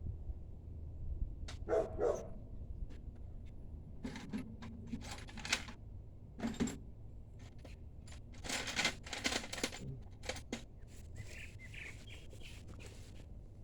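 A dog barking in short bursts, with sharp clicks and clatter of hand tools on metal in between.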